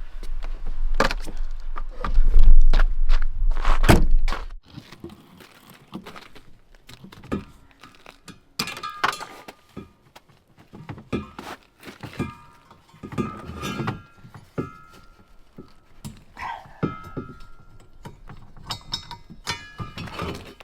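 Clunks, knocks and metallic clinks from swapping a propane tank and its fittings, some clinks ringing briefly. For the first few seconds a low wind rumble runs on the microphone, then it cuts off.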